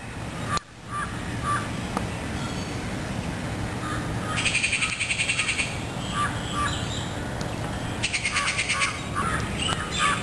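Birds calling in a garden: crows cawing in short repeated calls, with two louder bursts of fast, harsh chatter, about four seconds in and again about eight seconds in.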